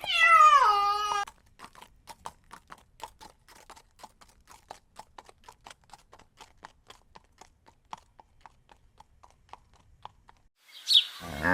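A horse whinnies once with a falling pitch, then its hooves clip-clop steadily, several strikes a second. Near the end a cow begins a loud, low moo.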